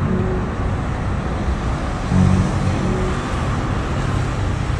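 Steady road-traffic rumble with a low engine hum, swelling briefly about two seconds in as a vehicle comes closer.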